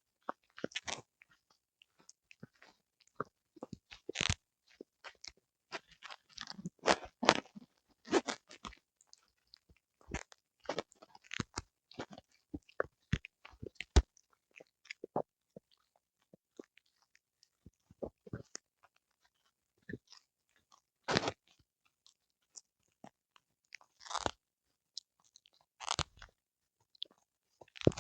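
A small Pomeranian–Spitz mix dog chewing and biting on a whole eel, with irregular crunches and short pauses between bites.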